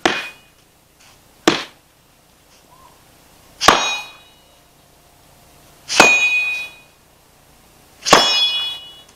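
Machete blows striking a carpet-covered cat tree: five hits a second or two apart, the first two short knocks, the last three louder clangs that leave the steel blade ringing.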